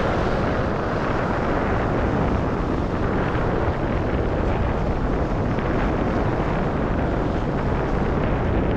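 Strong wind buffeting the microphone, over surf washing against shoreline rocks.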